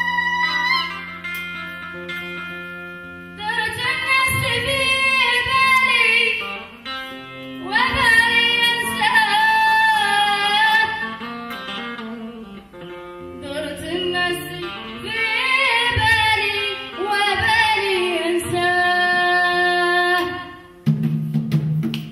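A woman singing long, ornamented phrases over sustained electric guitar notes; near the end the guitar takes over with heavier low notes.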